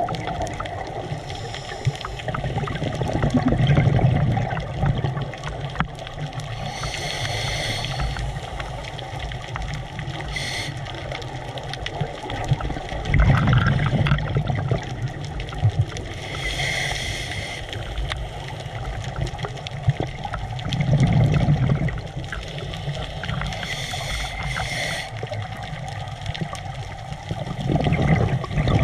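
Scuba diver breathing through a regulator underwater: a hissing inhalation every several seconds, each followed by a burst of exhaled bubbles gurgling out, repeating about four times.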